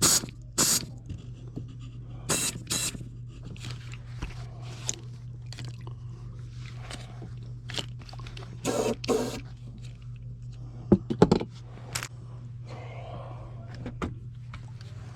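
Intermittent scraping, knocking and clattering of hands and tools handling parts, with a few sharp knocks near the end, over a steady low hum.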